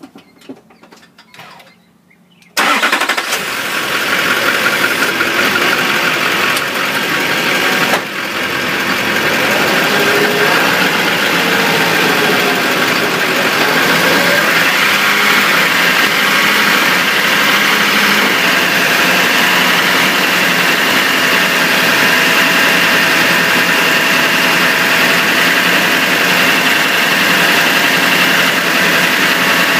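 LLY Duramax 6.6-litre V8 turbo-diesel starting abruptly about two and a half seconds in, then running steadily, heard from beneath the truck beside the driveshaft. A single knock comes about eight seconds in, and from then the driveshaft is turning with the engine's steady drone.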